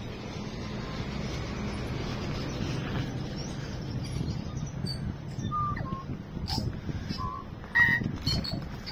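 A tūī singing: from about halfway through, a run of short notes at different pitches, whistles and sharp clicks, the loudest about eight seconds in, over a steady low rumble.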